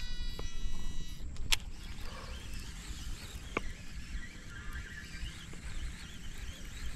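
Shimano Scorpion DC 150XG baitcasting reel's digital-control brake whining as the spool spins on a cast: several high tones glide slowly down and fade out about a second in. Then a sharp click about a second and a half in and another about two seconds later, over a low wind rumble.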